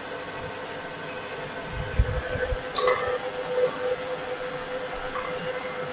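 KitchenAid stand mixer running at low speed, its motor humming steadily as the beater works chilled butter into flour and icing sugar for a rub-in sweet pastry. A few dull knocks come about two to three seconds in.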